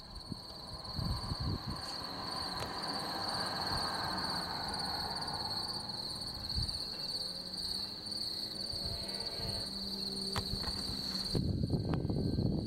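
Crickets trilling steadily in a continuous high chorus. A broad rushing sound swells and fades under it in the first half, and low rumbling noise comes up near the end.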